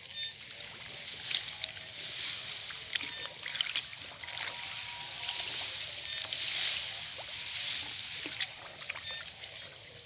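Splashing and rustling as hands grope through shallow muddy water among dense rice stalks, feeling for fish. The sound is an uneven hiss with small clicks that swells twice, about a second in and again past the middle.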